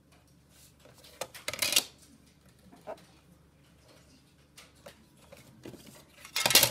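A plastic set square and ruler being shifted across the paper on a drawing board: a loud brushing slide about a second and a half in, a few light clicks, and another loud slide and knock near the end.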